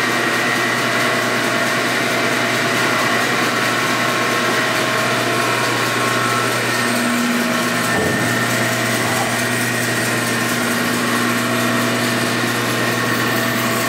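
SCMI SC900 36-inch bandsaw running without cutting, with its upper wheel door open: a steady, even hum and whir from the belt-driven 9 hp motor and the spinning wheels and blade. It sounds smooth-running, with no knocks or rattles.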